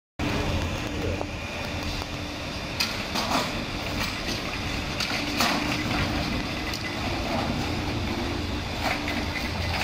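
Steady low hum of an idling vehicle engine, with a few short knocks and clatter as a stretcher is wheeled out.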